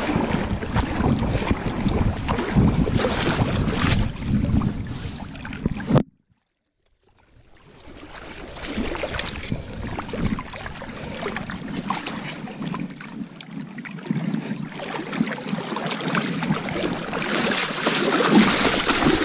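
Shallow river water splashing and churning around a hooked king salmon and a wading angler, with wind buffeting the microphone. About six seconds in the sound cuts out completely for over a second, then fades back in.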